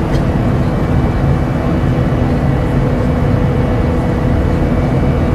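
Steady, loud jet airliner noise, the even rush heard inside the cabin in flight, with a few faint steady hums running through it.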